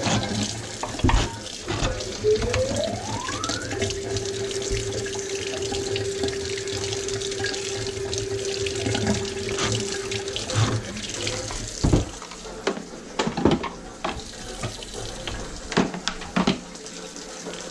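Kitchen faucet running into a sink while the greasy drum of a drain-cleaning machine is rinsed under it, with a whistling tone that rises and then holds steady for about six seconds. About twelve seconds in the water stops, and a few sharp knocks and clatters follow as the machine and its cable are handled.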